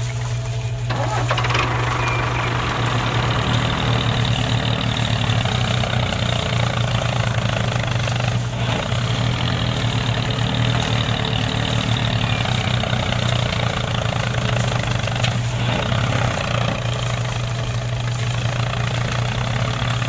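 A miniature tractor's engine sound running steadily as it pulls a seed drill, with a low hum throughout and a rougher, louder running noise coming in about a second in.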